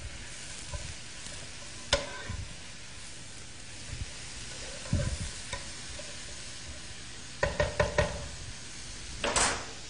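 Sliced mushrooms sizzling in olive oil in a pan over high heat, sweating as their moisture cooks out. A utensil knocks against the pan several times as they are stirred, most often near the end.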